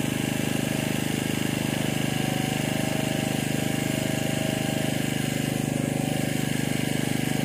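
A small engine running steadily at idle: a constant low drone with a fast, even pulse that neither rises nor falls.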